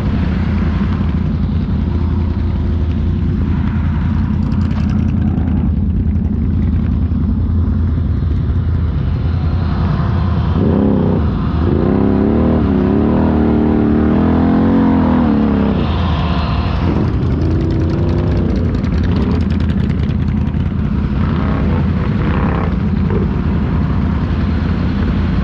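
ATV engine running steadily under way, with a stretch of revving that rises and falls for several seconds about ten seconds in.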